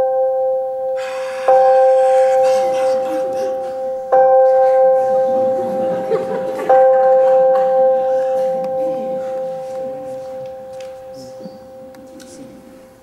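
A bell struck three times, about two and a half seconds apart, each stroke ringing on one clear tone and fading slowly, the last ring dying away over the final seconds. A rustling hiss runs under the middle strokes.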